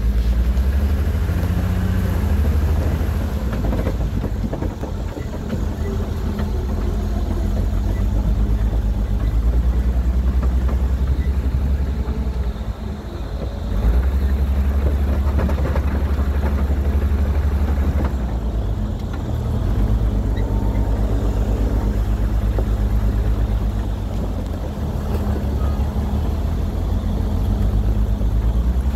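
Off-road vehicle engine running, a steady low rumble that dips briefly a little before the middle.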